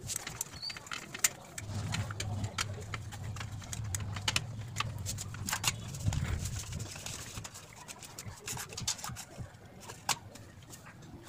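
Scattered light clicks and taps as a rusty office chair's steel seat plate, gas cylinder and base are handled and wiped with a rag. Under them is a low drone from about two seconds in until past the middle.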